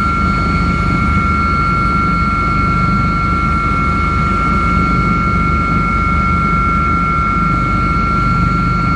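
Helicopter in flight, heard from inside the cabin: a steady low rotor rumble with a constant high whine over it.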